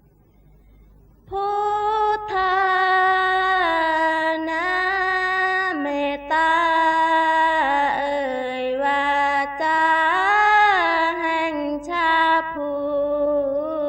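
Female voice singing a slow, drawn-out line of Thai Isan-style sarabhanya (Buddhist chanted verse), starting about a second in, with long held notes that slide up and down between pitches.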